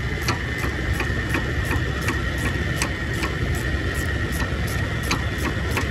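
Steady noise of large shop fans: a low rumble with a steady high whine, and an even ticking about three times a second.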